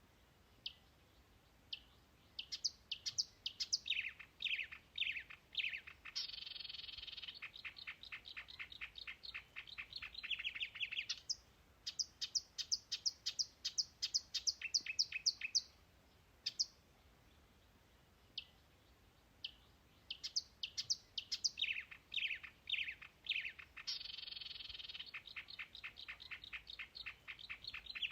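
A songbird singing: scattered high chirps quicken into a rapid trill, followed by a fast run of sharp, evenly spaced notes. After a short pause the same sequence comes round a second time.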